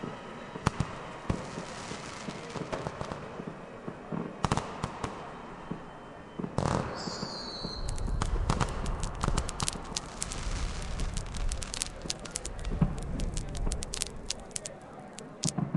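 Fireworks going off. Scattered single bangs come first, with a short whistle about seven seconds in, then from about eight seconds a dense run of crackling bangs over a low rumble.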